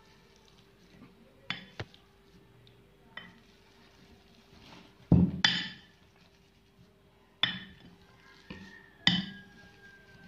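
A metal fork mashes boiled potatoes in a glass bowl, clinking against the glass in irregular strikes with a short ring after each. The loudest strike comes about five seconds in.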